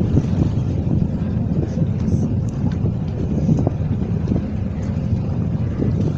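Wind buffeting the microphone over water rushing and splashing along the hull of a boat under way, a steady low rumble.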